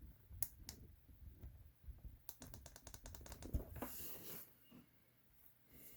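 Quiet tabletop handling noise. Two light clicks, then a quick run of about a dozen rapid clicks, then a short soft rustle.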